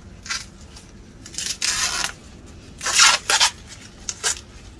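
Husk being torn and peeled back by hand from an ear of corn on the stalk: a run of dry tearing rustles, the longest lasting most of a second near the middle, the loudest about three seconds in.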